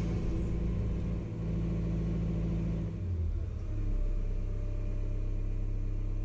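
Cat 320 hydraulic excavator's diesel engine running steadily, its note shifting about three seconds in and then settling again.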